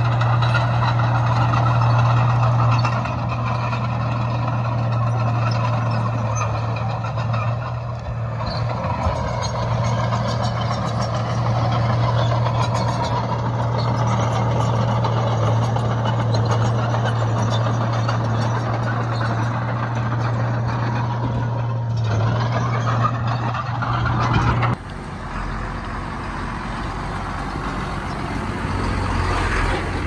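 Heavy diesel earthmoving machinery running with a steady engine hum. About 25 seconds in, the sound cuts off abruptly and is replaced by a quieter low rumble.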